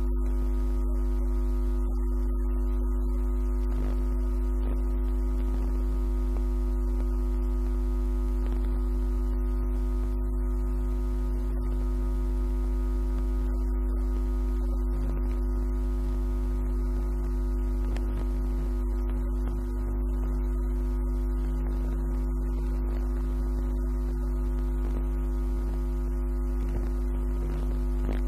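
Steady low hum with several constant higher tones layered over it, unchanging in pitch and level.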